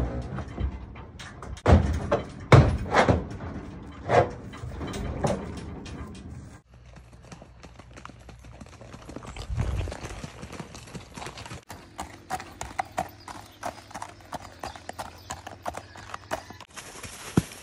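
Tennessee Walking Horse gelding's hooves: heavy, hollow thumps as it steps up into and moves about in a horse trailer during the first few seconds. Later come quick, even hoofbeats on gravel as it is ridden at a walk.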